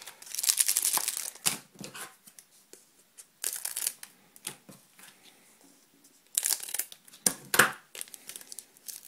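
Foil Pokémon booster pack wrapper crinkling as it is handled and cut open with scissors, in three bursts of rustling: near the start, around four seconds in, and again past six seconds.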